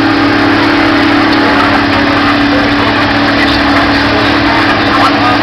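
Case IH STX 525 Quadtrac's diesel engine running loud and steady under heavy load, pulling the weighted sled down the track.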